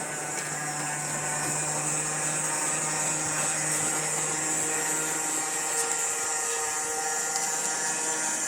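Scratch-built 1930s O scale model of a Pennsylvania Railroad P5a electric locomotive running on outside third rail track, its electric motor and gearing whirring steadily as the wheels roll on the rails, with a few light clicks.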